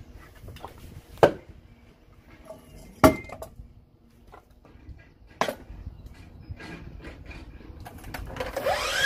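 Three sharp wooden knocks, the second the loudest, as blocks of timber are handled and set down. Near the end a HiKOKI C12RSH2 12-inch sliding compound miter saw's motor starts and winds up with a rising whine.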